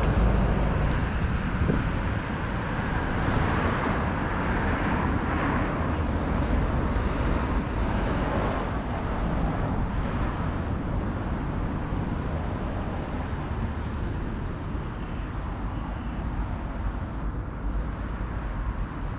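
Steady rumble of road traffic, loudest at the start and easing off slightly.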